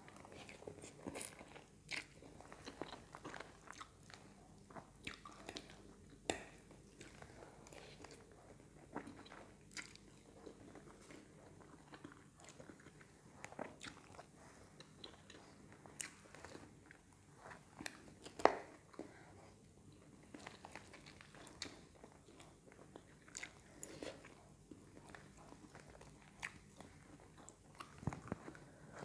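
Close-up eating: a person chewing mouthfuls of stir-fried pancit canton noodles with chicken, with scattered short clicks and taps of a fork on the plate. One sharp click about 18 seconds in stands out as the loudest.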